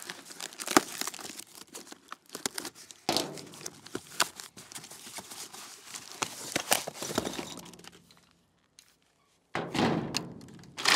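Cardboard shipping box being torn open and crumpled by gloved hands, with knocks and thuds as the heavy parts inside are shifted. The rustling and knocking stop briefly about two-thirds of the way through, then start again.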